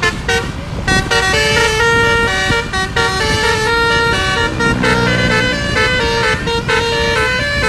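Bus telolet 'basuri' multi-tone horn playing a quick melody of short, loud notes that change pitch in steps, over the bus's engine running.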